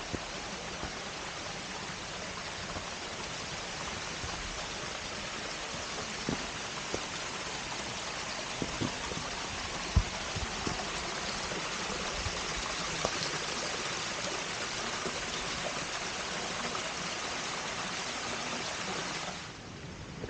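Steady rush of water from a mountain stream or cascade, with a few faint knocks scattered through it. The water sound cuts off suddenly just before the end.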